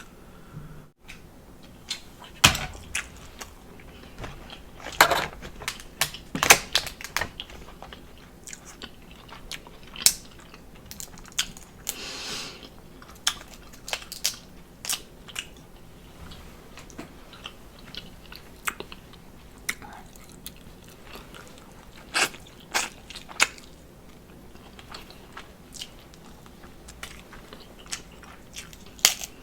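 Close-up sounds of a person eating a seafood boil: chewing and biting, with many sharp clicks and cracks scattered irregularly throughout, the strongest around two, five to seven, and twenty-two to twenty-three seconds in.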